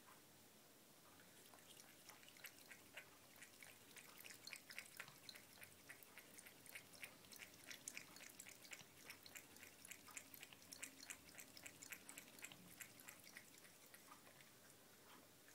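A cat lapping water from a bucket: a faint, quick run of small wet laps that starts about a second and a half in and dies away near the end.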